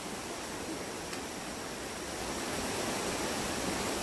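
Steady outdoor rushing noise, even and unbroken, with no distinct events.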